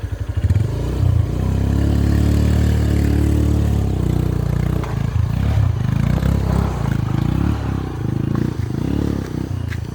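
Motorcycle engine revving hard under load on a steep uphill track. It holds steady at first, then surges up and down over the last several seconds and eases off near the end, as the bike fails to make the climb.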